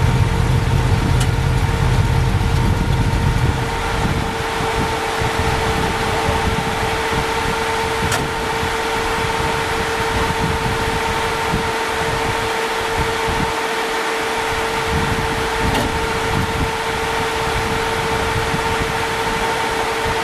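Race vehicle engine running with a low rumble, which stops about three and a half seconds in. A steady whine and hiss carry on after it.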